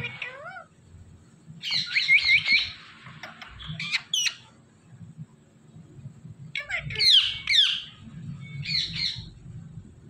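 Parrot calls: a handful of short bouts of shrill, quickly gliding chirps and squawks, the loudest about seven seconds in.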